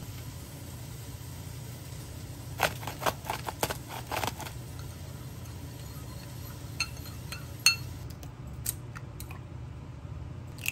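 Metal spoon stirring sauce in a ceramic bowl: a quick run of clinks against the bowl about three seconds in, then a few sparser, ringing clinks. A steady low hum lies underneath, and a single click comes at the very end.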